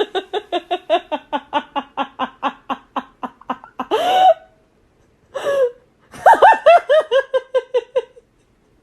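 A person laughing hard: a long run of rapid 'ha-ha' pulses, about five a second, then two louder single outbursts, and a second run of laughter that stops shortly before the end.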